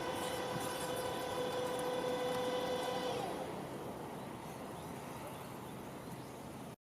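Tobu Tojo Line train running past a level crossing with a steady whine that fades after about three seconds, leaving a low rumble. The sound then cuts off abruptly near the end.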